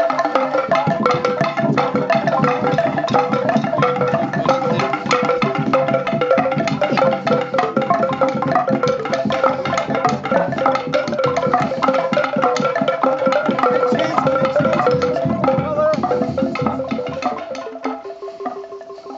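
Fast rhythmic percussion music: quick wooden strikes and repeated pitched notes played steadily, fading away near the end.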